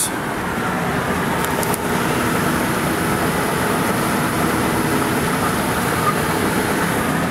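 Steady engine and road noise inside the cabin of a 2004 Ford Excursion cruising on the highway at about 55 mph, the engine turning near 1750 rpm.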